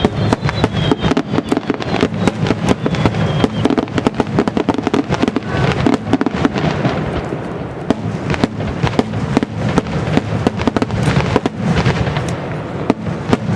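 Starmine fireworks barrage: shells bursting in rapid, overlapping succession, many bangs a second with no pause.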